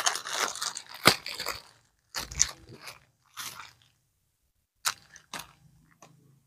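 Clear plastic bag crinkling and rustling in the hands in short irregular bursts, with a few sharp crackles, as a packet of bracelets is handled.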